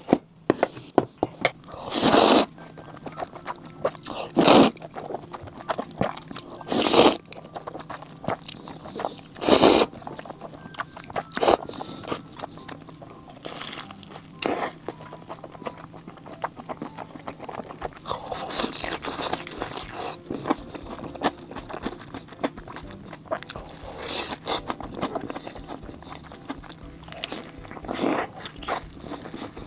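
A series of loud crunches of crispy fried food every few seconds, with smaller crackles in between.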